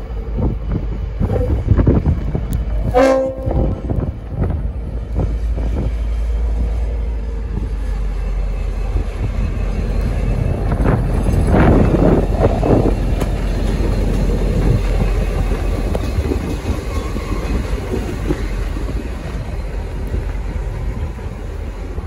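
V/Line N class diesel-electric locomotive, its EMD two-stroke diesel running with a steady low rumble, sounds its horn in one short blast about three seconds in. The locomotive then passes close by, loudest around the middle, and draws away.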